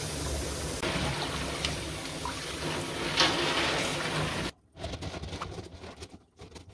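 Water running into a stainless-steel kitchen sink, a steady rushing that cuts off suddenly about four and a half seconds in; then a hand swishes through the water with small, irregular splashes.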